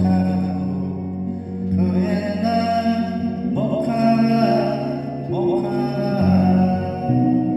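Music: a slow Korean song with held bass notes under a melody line that slides between notes.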